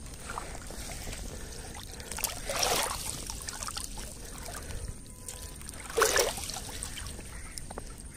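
Water sloshing and trickling as a fishing net is worked in creek water, with two louder splashes about two and a half and six seconds in.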